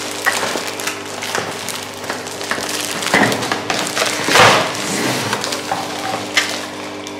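Packaging being handled as a spray mop is unboxed: crinkling and rustling of cardboard and plastic, with the loudest crackles about three and four and a half seconds in. A faint steady hum runs underneath.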